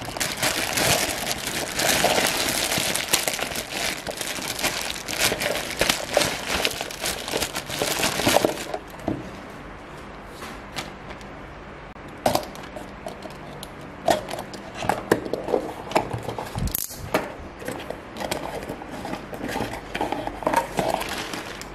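Clear plastic packaging bag crinkling as it is picked and pulled open, dense and continuous for the first eight or nine seconds. After that come quieter, scattered rustles and taps of a cardboard box being handled and its flaps opened.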